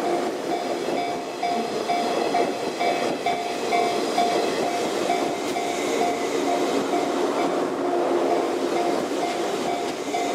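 Level crossing warning bell dinging in a rapid, even rhythm while a 185-series electric express train runs past the crossing.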